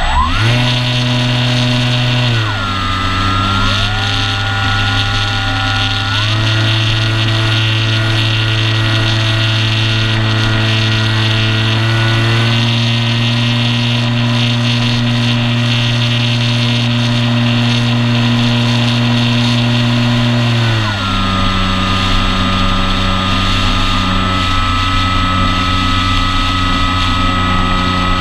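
Brushless electric motor and propeller of an Apprentice S 15e RC airplane, picked up by the onboard camera: a steady whine that steps up in pitch as the throttle opens just after the start, drops about two seconds later, rises again around six seconds in and falls back a little after twenty seconds, over a constant rush of air.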